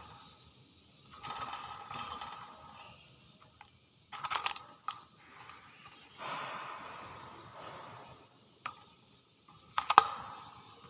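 Hill myna giving harsh, raspy, hissing calls a second or two long, twice, with sharp clicks about four seconds in and a loud cluster of clicks near the end.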